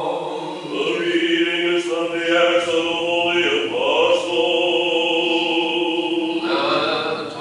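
Orthodox church choir singing a slow a cappella chant in long held chords.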